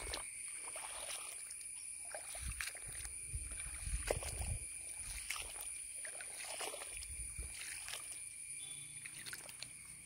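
Footsteps sloshing and squelching through shallow water over waterlogged grass, in irregular soft thuds with small splashes and clicks. A steady high-pitched ringing drone runs underneath.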